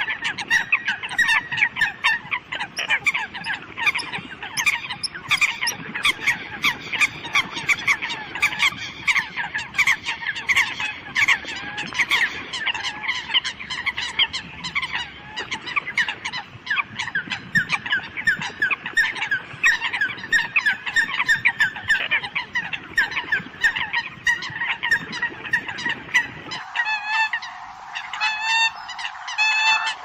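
Eurasian coots calling, a dense run of short, sharp, overlapping honking calls. Near the end the sound turns thinner, with cleaner calls repeated in an even pattern.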